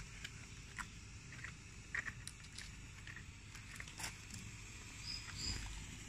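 White smoke firework tube burning, giving off a faint steady hiss with scattered soft crackles and clicks at irregular intervals.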